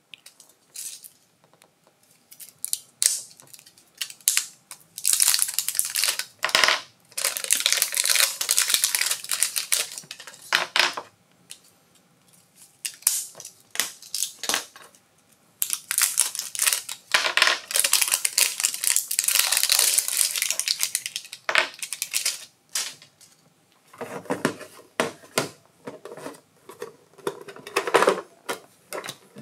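Hands unpacking batteries: two long stretches of crinkling and tearing plastic packaging, with scattered clicks. Near the end comes the clatter of a hard plastic transmitter case being handled as its battery compartment is opened.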